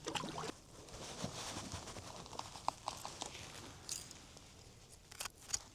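Faint, scattered light knocks and clicks in a kayak, with a few sharper taps near the end.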